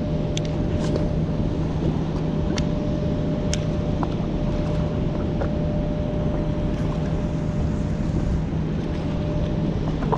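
A continuous whistling tone over a steady rushing noise and a lower hum, with a few light clicks in the first few seconds.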